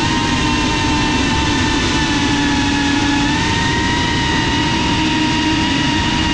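FPV racing drone's brushless motors and propellers whining steadily at speed, heard close up through the onboard camera's raw audio with rushing air noise. The pitch shifts slightly about three seconds in.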